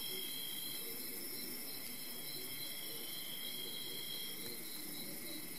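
Night chorus of crickets and other insects: a steady chirring on several high pitches, over a faint low rush.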